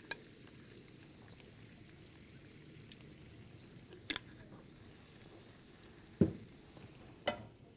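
Faint room tone broken by a few short, sharp clicks and knocks of pans and utensils being handled, one right at the start, then about four, six and seven seconds in.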